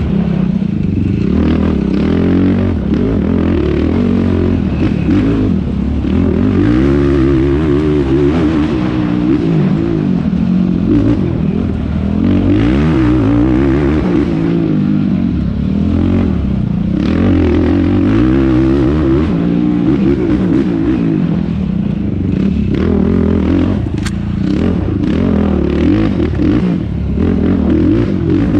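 Yamaha YFZ450R quad's single-cylinder four-stroke engine at race pace, its revs repeatedly climbing and dropping as the throttle is worked, heard from a camera mounted on the quad.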